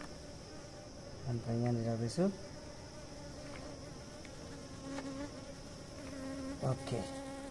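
Honeybees buzzing around an open hive, with one flying close past about a second in and more buzzing close by near the end.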